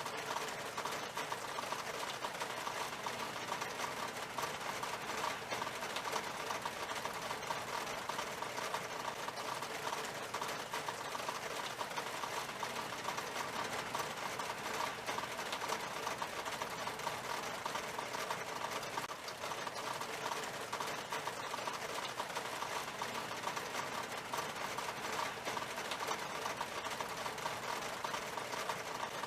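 Steady rain falling on window glass: a dense, unbroken run of small drop taps over a hiss of rain.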